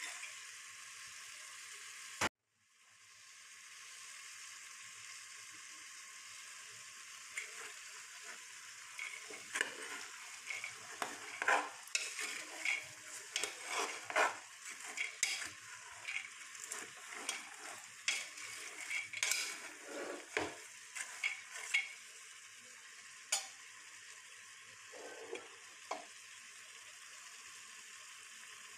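Chickpeas frying in oil and spice paste with a steady sizzle, while a spatula scrapes and clicks against the pan as they are stirred, most busily in the middle stretch. The sound drops out for a moment about two seconds in, then the sizzle fades back in.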